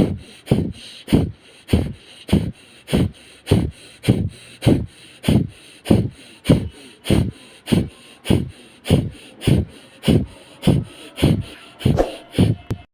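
Kapalbhati pranayama breathing: a steady series of sharp, forceful exhalations through the nose, a little under two a second.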